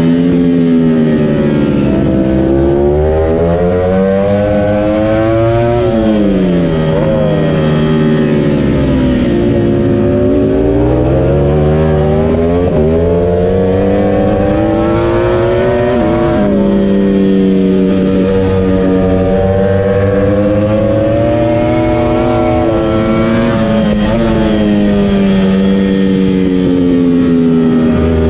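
Ducati Panigale V4 R's 998 cc Desmosedici Stradale R V4 engine and exhaust heard from on board at racing speed. The revs climb steeply under acceleration and then drop sharply, over and over.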